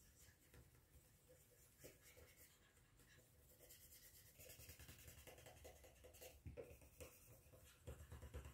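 Faint scrubbing of a cotton swab, held in tweezers, rubbing old thermal paste off the copper contact plate of a laptop heatsink: short scratchy strokes that grow busier about halfway through.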